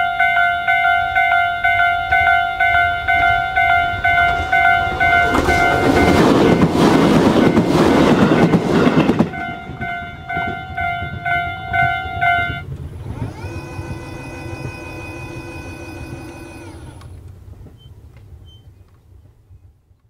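Japanese railway level crossing's electronic warning bell (Tobu standard type) dinging in a rapid, even repeat. A short local train runs through for about four seconds, and its noise swamps the bell. The bell stops about twelve and a half seconds in, and a several-tone hum then glides in, holds for a few seconds and glides away before the sound fades out.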